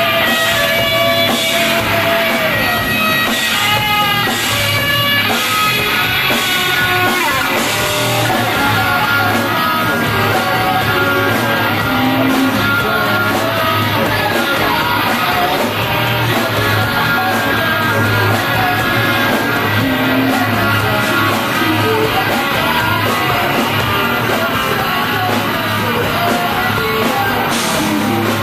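Live punk-rock band playing at a steady loud level: electric guitar and drum kit, with a woman singing into a microphone.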